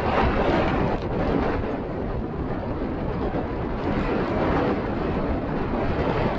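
Steady rushing of wind on an outside-mounted camera's microphone as a car drives a wet road, mixed with the hiss of tyres on standing water and rain.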